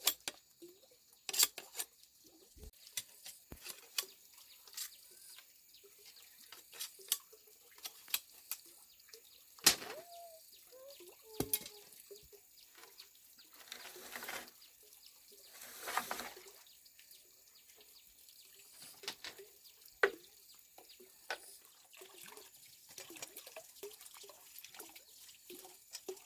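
Scattered light clicks and knocks of objects being handled, with dripping and two brief splashes of water a little past halfway.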